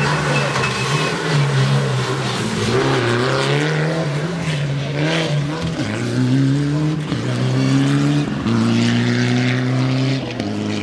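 Mitsubishi Lancer Evolution rally car's turbocharged four-cylinder engine at full throttle, its note climbing and dropping back several times as it changes up through the gears.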